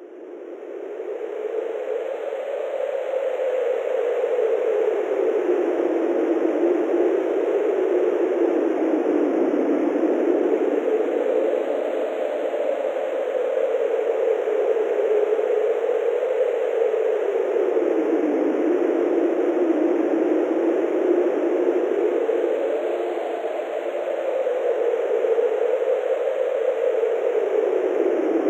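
A steady rushing noise that fades in over the first few seconds, then holds with a slow, hollow wavering sweep in pitch.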